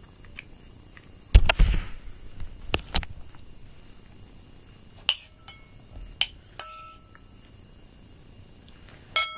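Metal spoon clinking and tapping against a ceramic bowl, a few separate ringing clinks with a short scrape, plus a dull knock about a second and a half in.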